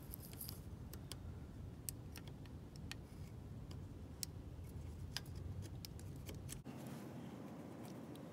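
Razor blade scraper scraping old gasket off a Land Rover Series 2A's wheel hub face: faint scattered ticks and scrapes of the blade on metal over a low rumble. The rumble drops away suddenly about two-thirds of the way through.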